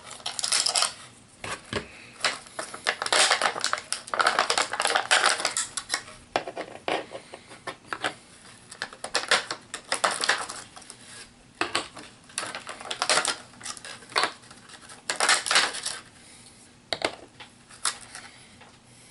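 Plastic packaging crinkling and small plastic miniatures clicking and clattering as they are handled, in irregular bursts with short pauses.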